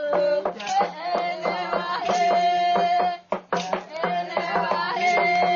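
Uitoto ritual chant of the fruit ritual: voices singing together in a repeating melody with long held notes, over evenly spaced knocks that keep the beat.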